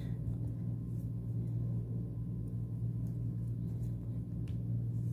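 Steady low background hum, with a faint tick about four and a half seconds in.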